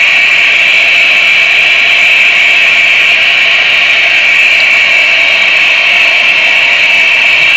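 Steady, loud, high-pitched buzzing drone with a fainter lower hum beneath, unchanging throughout.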